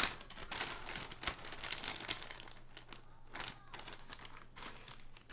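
Packaging of a batch of keyboard switches crinkling and rustling as it is opened, with scattered light clicks.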